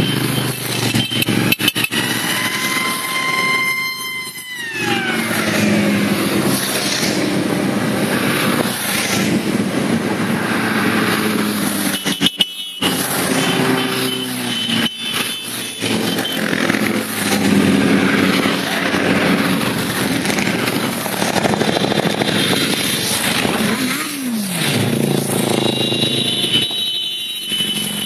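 A long procession of motorcycles, cruisers and sport bikes, riding past one after another with their engines running and revving. About four to five seconds in, the pitch of one bike falls away as it passes.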